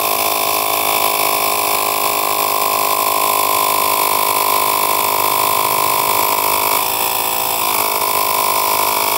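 Cordless portable tire inflator's small electric air compressor switched on and running with a steady drone, its tone shifting briefly about seven seconds in before settling again.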